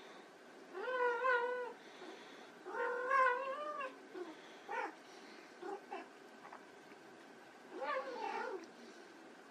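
Persian kitten meowing: three drawn-out meows of about a second each, their pitch wavering, with a few short calls in between.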